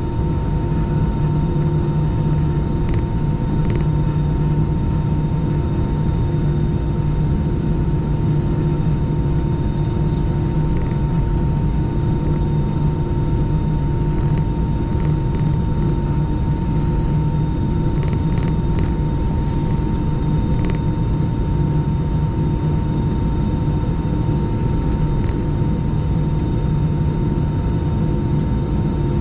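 Cabin noise of an Airbus A319 taxiing, heard from inside the cabin: the jet engines run at taxi idle as a steady rumble with a few constant hums and a thin high whine.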